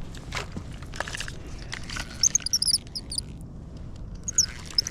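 Small birds chirping: quick clusters of short high chirps from about two seconds in and again near the end, with a few sharp clicks in the first couple of seconds.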